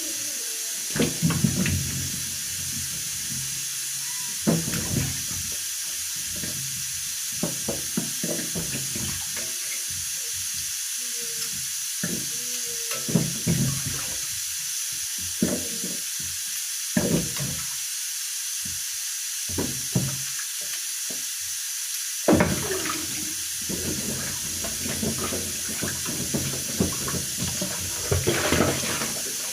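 Tap water running into a kitchen sink while tomatoes are rinsed by hand, with irregular splashes and knocks as they are handled.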